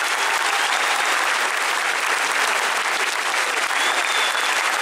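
A large crowd applauding steadily, with sustained clapping and no pause.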